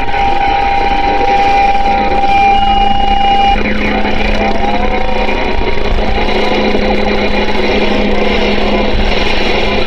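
CB radio receiver hissing with static and interference carried in from Mexican stations. A steady whistle cuts off about three and a half seconds in, a lower steady hum tone comes in about two seconds in, and brief warbling squeals follow around four seconds.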